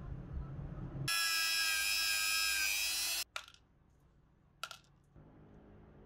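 A loud, high-pitched hissing whine lasts about two seconds and cuts off suddenly. It is followed by two light clicks as small steel nuts are dropped into a plastic cap.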